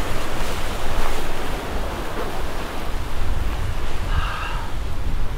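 Surf washing against the jetty rocks, with wind buffeting the microphone in a steady low rumble. A short high-pitched tone sounds briefly about four seconds in.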